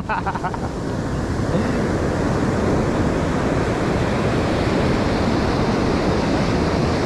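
Ocean surf: a steady rush of breaking waves and foaming whitewater washing through the shallows.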